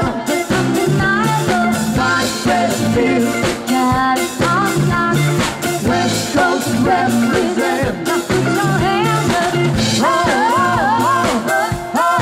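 Live rock band playing: a woman sings lead over electric guitar, bass guitar and a drum kit with a steady beat.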